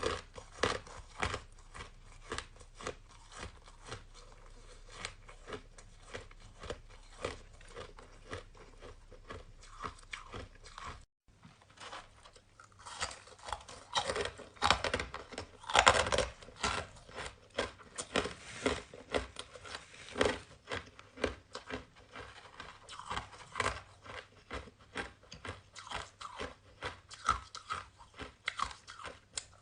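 Person biting and chewing crunchy purple-flavoured shaved ice in a steady run of crisp crunches, several a second. It drops out for a split second about eleven seconds in, and the crunches are louder for a stretch after that.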